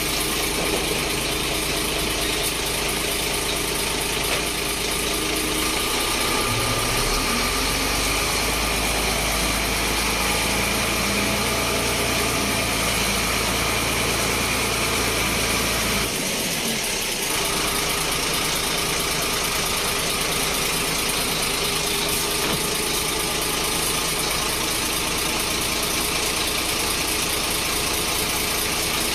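Foton dump truck's diesel engine running steadily while its hydraulic hoist raises and lowers the dump box. The engine's low note strengthens about seven seconds in and changes again around sixteen seconds in.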